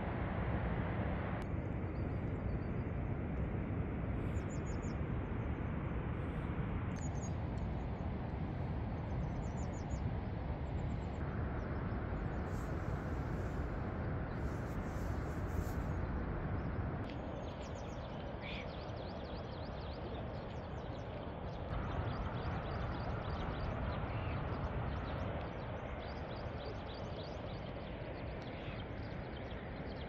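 Small birds chirping at dawn, short high calls repeated in runs, over a steady rushing background noise. The background shifts abruptly several times.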